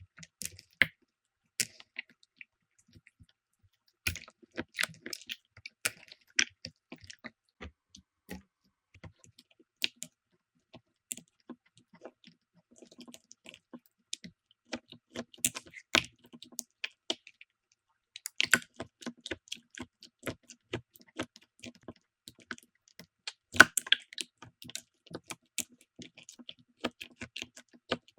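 Slime being squeezed, pressed and poked by hand, giving irregular sticky clicks and small pops in busy clusters, with brief lulls around two to four seconds in and again around seventeen seconds in.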